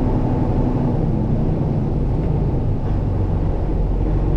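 Delivery truck's engine running steadily, heard from inside the cab while driving, a low, even drone.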